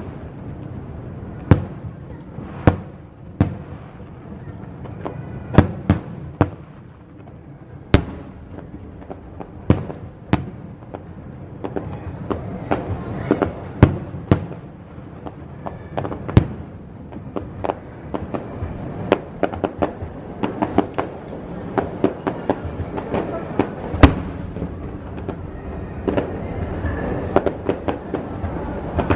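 Fireworks display bursting overhead: separate sharp booms a second or so apart, becoming a dense, rapid run of bangs from about halfway through, with the loudest single boom late on.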